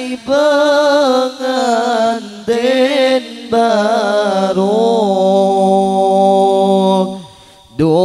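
A man singing a slow, ornamented chant-like melody into a microphone over a PA system, with long held, wavering notes and short pauses for breath. In the middle a steady low note is held beneath the voice.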